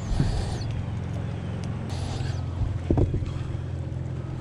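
Steady low hum of a boat motor, with short rustles and two quick knocks about three seconds in.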